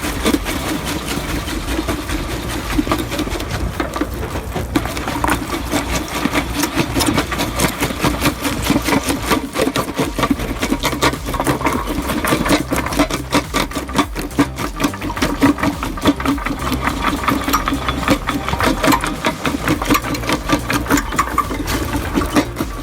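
Heavy machinery working: a steady engine hum under dense, irregular crunching and clattering that goes on throughout.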